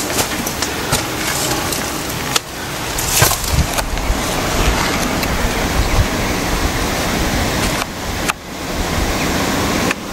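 Steady rushing noise with an uneven low rumble and a few scattered knocks, typical of wind buffeting and handling noise on a handheld camera's microphone as it is carried along. The sound dips briefly twice.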